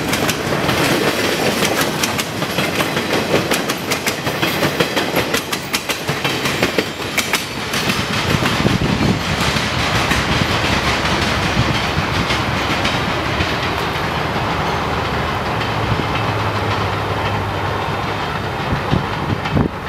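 Empty log flatcars of a freight train rolling past, their wheels clicking and clanking over the rail joints. The clicks thin out about eight to ten seconds in as the last car goes by, leaving the steady rumble of the train moving away.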